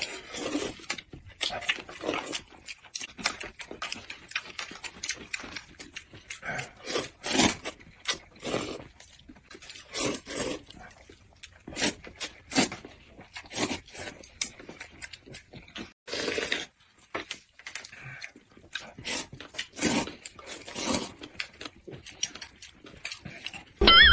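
Two people slurping instant cup noodles: many short, irregular slurps and sucking noises one after another, with brief pauses between.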